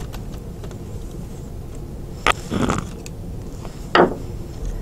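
Small screwdriver backing screws out of a plastic toy figure: faint ticks and scrapes, with two sharper clicks about two and four seconds in, over a steady low hum.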